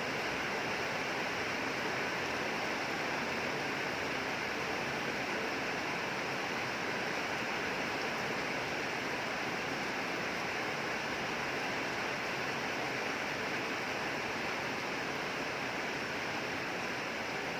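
Steady rain falling, an even hiss with no distinct drops or thunder standing out.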